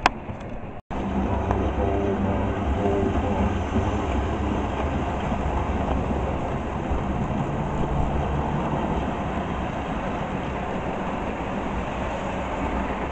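Model train running on the layout's track: a steady rumble of the locomotive's motor and the wheels passing along the rails. The sound drops out for an instant about a second in.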